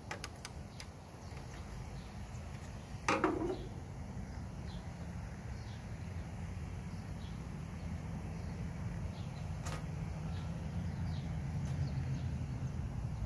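Small parts of a lawn mower's self-propel gear drive being handled during disassembly: a sharp knock about three seconds in and a lighter click near ten seconds, over a steady low hum.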